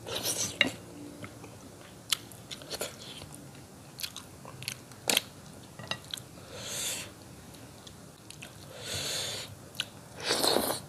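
Close-miked chewing of rice and fish curry eaten by hand: wet mouth clicks and smacks scattered through, with a few longer, noisier mouth sounds.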